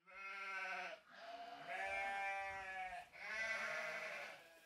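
Sheep bleating: three long, wavering bleats one after another.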